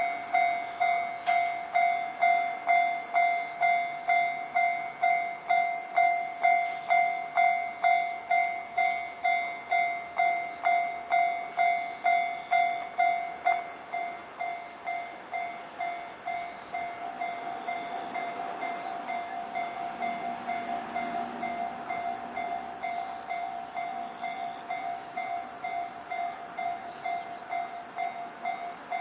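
Japanese level-crossing warning bell ringing, about two strikes a second. About halfway through the bell drops to a softer level while a train runs through the crossing with a rushing rumble.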